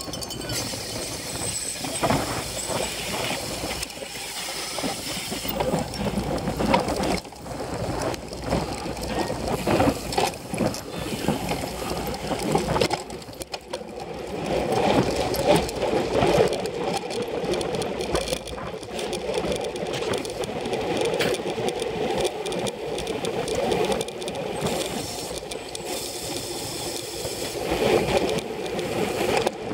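Ride noise from a cyclocross bike raced hard: wind rush with rattling knocks as it jolts over rough grass, then a steadier rush of tyres and wind once it reaches pavement, about fourteen seconds in.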